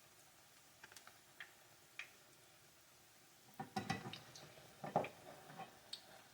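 A spatula clinking and scraping against a frying pan while turning frying potato pancakes. A few light clicks come first, then a burst of clattering knocks about three and a half seconds in and another around five seconds.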